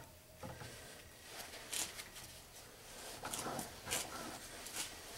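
Faint, scattered metal clicks and glove rustling as DeWalt adjustable pliers grip and turn a hex bolt head clamped in a bench vise.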